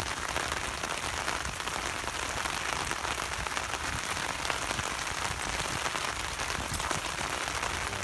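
Steady rain falling, a dense patter of small drops without a break.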